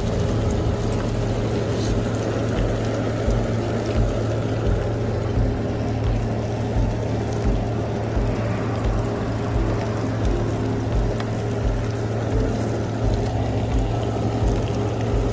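Hot oil sizzling and bubbling in a frying pan as coated bread pieces deep-fry. Under it runs a steady low hum with a regular low thump about every two-thirds of a second.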